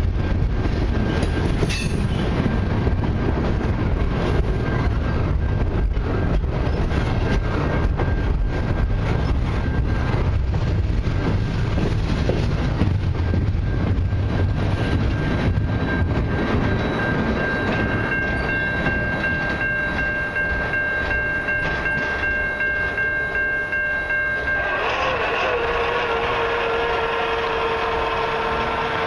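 Container-laden well cars of a freight train rolling past, with a low rumble and wheels clacking over rail joints, thinning out as the end of the train goes by. From about halfway through, a distant multi-tone train horn sounds in long steady blasts, and its chord shifts lower near the end.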